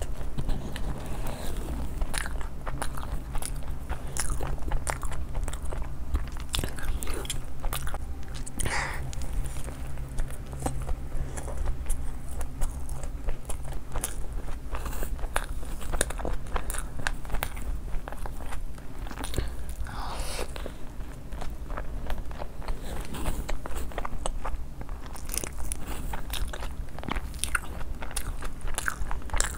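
Close-miked eating: repeated crunching bites and chewing of crispy food, many short crackly crunches throughout.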